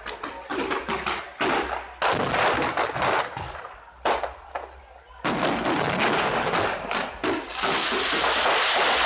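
Aerial fireworks shells bursting in a string of loud sudden bangs, each dying away over a second or so. Near the end they give way to a dense, continuous rush of noise.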